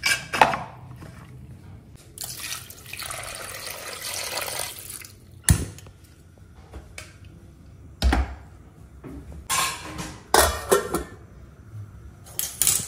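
Water poured into an aluminium cooking pot of spiced mutton chops for about two and a half seconds, among sharp metal knocks and clanks as the pot is set on a gas stove's burner grate and a steel plate is laid over it as a lid.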